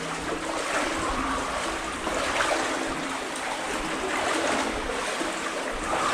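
Legs wading through knee-deep water in a flooded tunnel, the water sloshing and swishing continuously.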